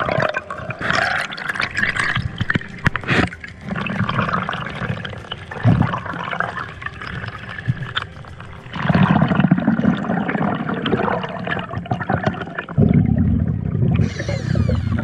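Water gurgling and rushing around an underwater camera in irregular gushes, with stronger surges about nine seconds in and again near the end.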